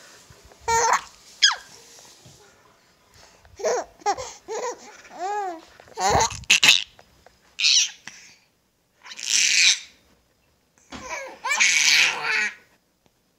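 Nearly five-month-old baby babbling and squealing in short, arching coos, then louder high-pitched shrieks in the second half. A couple of thumps are heard about six seconds in.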